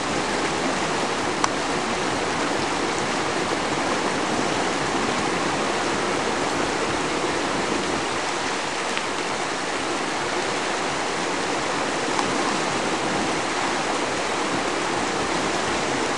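Fast whitewater rushing steadily through the rapids of a slalom course, a continuous hiss. There is one brief sharp knock about a second and a half in.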